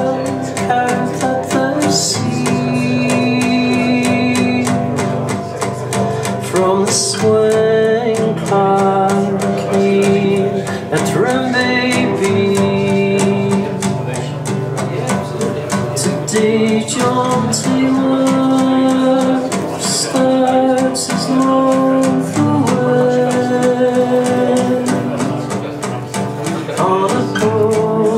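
A recorded song played back through a hi-fi system's loudspeakers: a singing voice over guitar with a low bass line.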